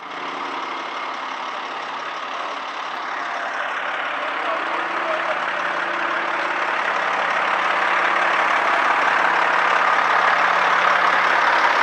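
Engine of heavy asphalt paving machinery running steadily, growing gradually louder.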